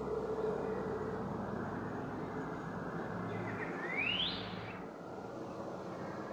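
Steady outdoor street noise, a low rush like passing traffic. About four seconds in there is a short, sharply rising whistle.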